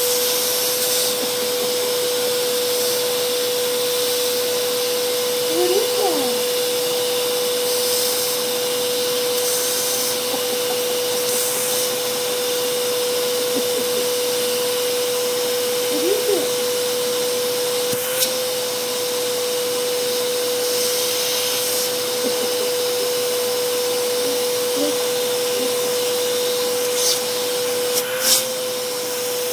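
Vacuum cleaner running steadily, a constant hum with an airy hiss of suction at the open end of its hose wand. Near the end there are a few short clicks and slight wobbles in the hum as a hand touches the nozzle.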